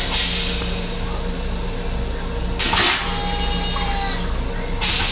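Rail-car toilet flushing its stainless-steel bowl: a short whoosh about two and a half seconds in, over the steady hum of the train car.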